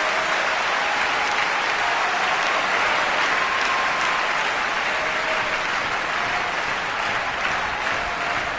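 Large concert-hall audience applauding steadily just after the final music ends, a dense even clapping that eases off slightly near the end.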